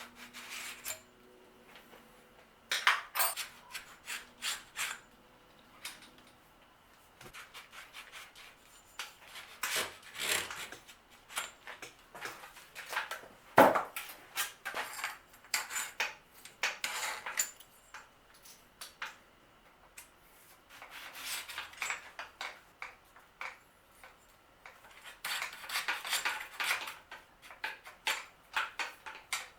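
Metal hand tools and bicycle parts clinking, rattling and scraping in scattered bursts as components are taken off a bicycle, with one sharp metallic knock about halfway through.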